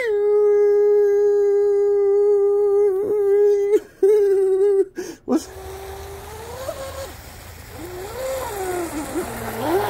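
A steady electronic test-pattern beep with a buzzy edge, which breaks off briefly twice and stops about five seconds in. It gives way to the high whine of a 4000 kV brushless motor in a small RC tri-hull boat, rising and falling in pitch as the throttle changes, over a low rumble.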